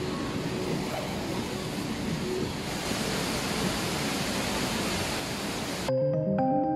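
Steady rushing of a waterfall, an even noise without pitch. About six seconds in it cuts off and gentle piano-like background music starts.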